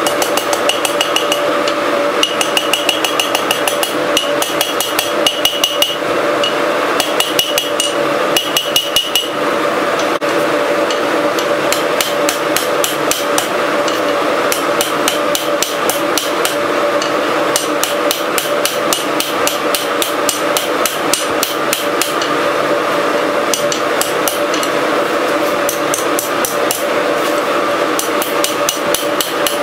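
Hand hammer striking red-hot steel on an anvil in quick, steady blows while forging an S hook; the anvil rings on under the strikes.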